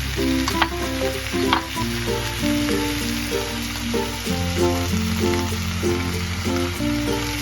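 Food sizzling steadily in a hot frying pan, with a few sharp clicks of stirring in the first second or two. Background music with held bass notes plays over it.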